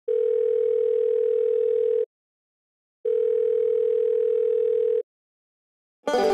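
Two long, steady electronic tones like a telephone dial or ringing tone, each about two seconds with a second's gap between. Near the end a plucked chord is struck and rings on.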